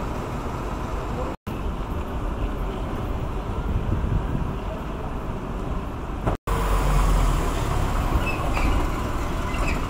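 Steady city street ambience of traffic noise and a low rumble. It cuts out to silence twice, about a second and a half in and again about six and a half seconds in. After the second cut a deeper rumble of a passing vehicle swells.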